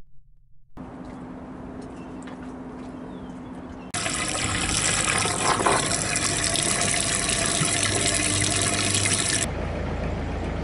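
Water running from a hose into a deck fill fitting, filling the boat's tank. A quieter flow with a steady hum gives way to a loud, even gush about four seconds in, which stops about a second before the end.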